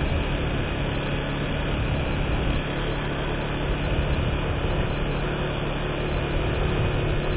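Steady noise of a vehicle driving along a road: a low engine hum under a constant hiss of wind and road noise.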